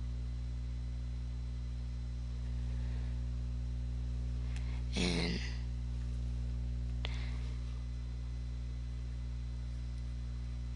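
Steady low electrical mains hum in the recording, with a brief vocal sound like a sigh or murmur about halfway through.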